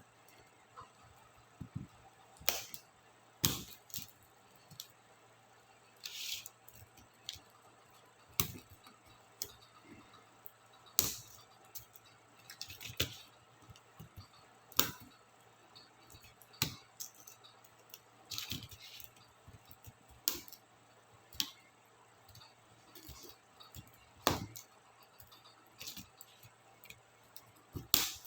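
Laptop keyboard keycaps and their plastic scissor mechanisms being pried off and handled: irregular sharp plastic clicks and snaps, about one a second, with a few short scratchy scrapes.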